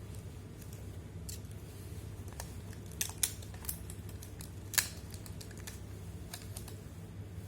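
Scattered sharp clicks and taps from handling a small phone part and its packaging, a few louder ones about three to five seconds in, over a steady low hum.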